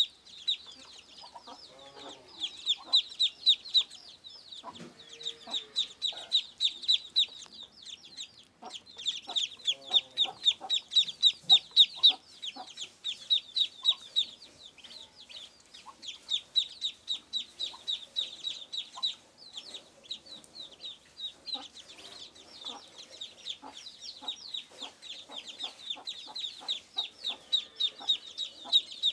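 A brood of Muscovy ducklings peeping. Their high calls come many a second, almost without a break.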